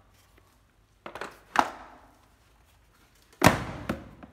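Sharp knocks and clatters of hard objects being handled and set down: two knocks about a second in, then a louder pair about three and a half seconds in.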